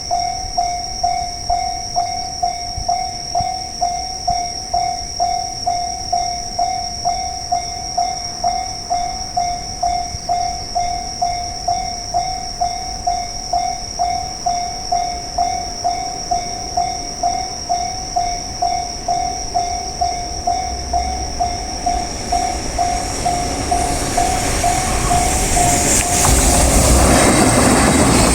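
Japanese railway level-crossing warning bell ringing, a steady electronic clang at about two strikes a second. A train approaches in the last few seconds, its rolling noise growing until it covers the bell as it passes near the end.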